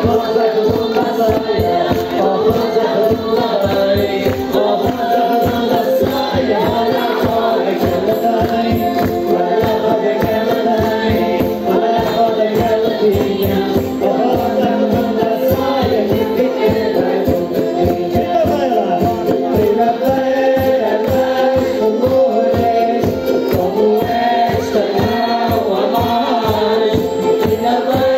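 Live Madeiran folk music: a group singing in chorus over a steady, quick beat of rattling percussion.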